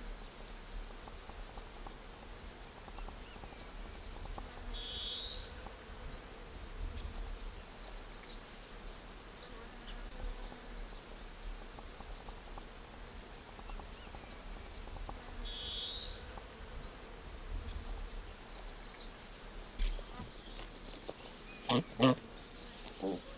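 Quiet outdoor ambience: insects buzzing, and a bird giving one short rising call twice, about ten seconds apart. A few short, louder low sounds come near the end.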